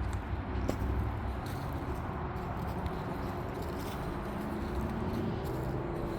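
Steady drone of road traffic from a highway.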